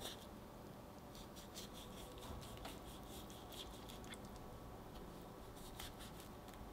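A knife cutting grapefruit segments free of their membranes on a wooden cutting board: a string of faint, irregular clicks and snicks as the blade slices through the fruit.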